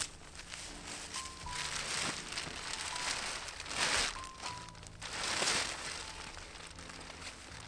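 Rustling and crinkling of a burlap rucksack and tarp being handled, in several swells, over background music with sparse held notes.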